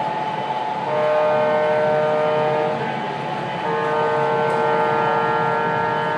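Model diesel locomotive's electronic sound-system horn blowing two long blasts about a second apart, the second longer, over a steady hum and rumble from the running layout.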